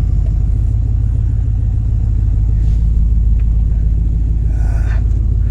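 1978 Ford Mustang engine idling steadily with a low, even rumble. Its carburetor has just been repaired and the hardened base plate replaced to stop vacuum leaks.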